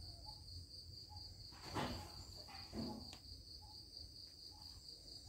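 Faint, steady high-pitched trill of crickets, with two brief rustling sounds around two and three seconds in and a short click just after.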